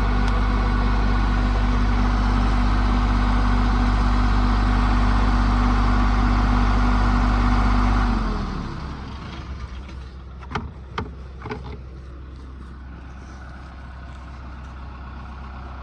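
Portable light tower's generator engine running steadily, then shut off about eight seconds in, winding down quickly to a stop. A few sharp clicks follow, over a quieter low engine hum that keeps going.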